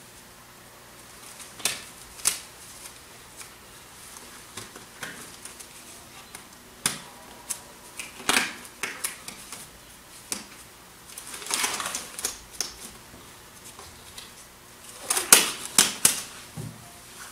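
Disposable gloves being pulled on by hand: a run of sharp snaps and crinkly rustles, busiest about eleven seconds in and again near the end.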